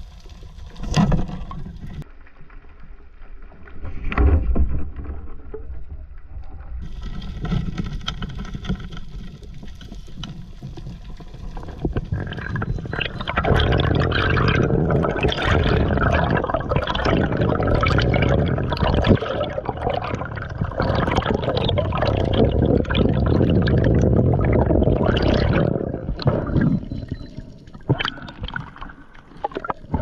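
Water sloshing and bubbling around an underwater camera during a freedive, with sharp knocks about one and four seconds in. From about halfway the churning and bubbling grows loud and steady for over ten seconds, then dies away near the end.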